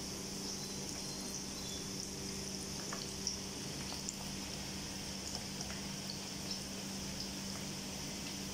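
Hot oil sizzling steadily as sesame-coated binangkal dough balls deep-fry in a pan, with scattered small pops. A low steady hum runs underneath.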